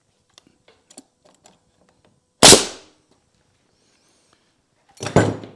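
A pneumatic coil nailer fires once, about two and a half seconds in, driving a nail through a 2x4 joint of a small roof truss, with a few faint handling clicks before it. A louder knock follows near the end.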